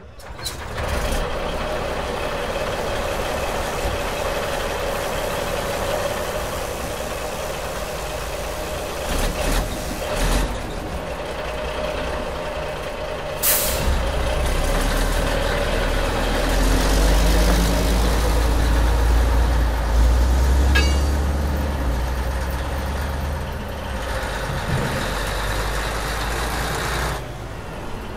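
Quarry dump truck's diesel engine running steadily, with a short air-brake hiss about halfway through. After the hiss the engine's low rumble grows louder for several seconds, then eases off near the end.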